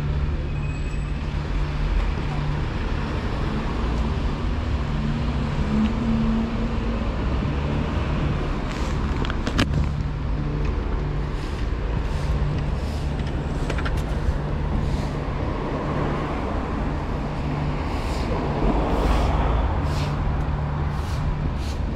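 Road and traffic noise with a steady low rumble, heard from an electric unicycle being ridden along the road, with a sharp click a little under halfway through.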